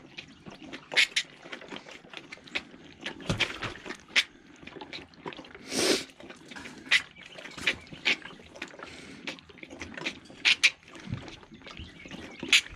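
A calf sucking milk from the nipple of a hand-held plastic jug bottle: irregular wet sucking and slurping clicks. A short, louder rush of noise comes about six seconds in.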